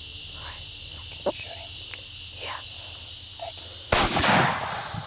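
Crickets and other insects chirping steadily, then a single sudden loud shot about four seconds in that fades away within a second: the shot that drops the whitetail buck.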